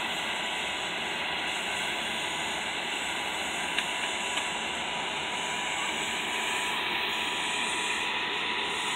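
Sikorsky S-92A helicopter's twin turboshaft engines running on the ground with the rotors turning: a steady turbine whine over an even rushing hiss.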